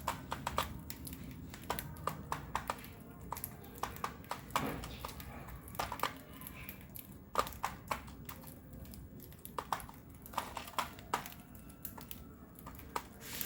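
A lovebird's beak pecking and cracking at seeds or its cage: irregular sharp clicks and cracks, a few a second.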